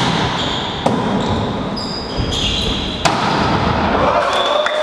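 Volleyball rally in a large sports hall: sharp ball hits about a second in and again about three seconds in, with short high sneaker squeaks on the court floor, all echoing in the hall.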